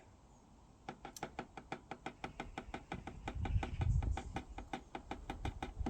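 Last of the engine oil draining from an upturned 4-litre plastic bottle through a funnel, as a quick, even run of glugs, about five or six a second.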